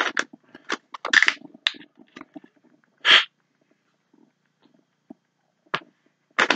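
A sheet of paper rustling as it is handled, with scattered soft clicks, and a short sharp hiss about three seconds in.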